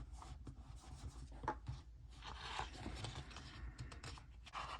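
Faint rustling and scratching of paper with scattered small clicks: sticker sheets being handled and stickers peeled and rubbed down onto a planner page.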